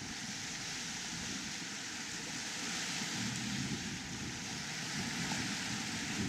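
Steady rush of sea water churning in a sailing yacht's wake, with a low, uneven wind rumble on the microphone.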